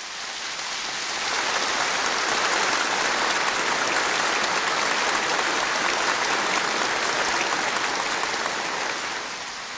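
A large audience applauding: dense, steady clapping that swells over the first second or so and eases off near the end.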